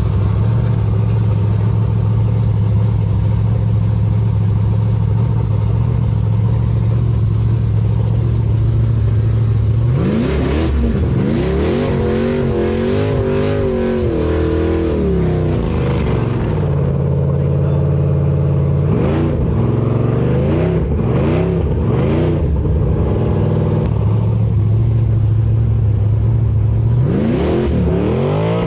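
Car engine running at a steady pitch, then revved up and down repeatedly from about a third of the way in, with a steadier spell in between and a rising rev near the end.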